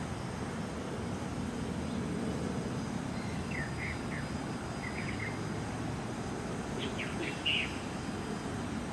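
A small bird chirping in three short bursts, about a third of the way in, around halfway, and louder near the end, over a steady low outdoor rumble.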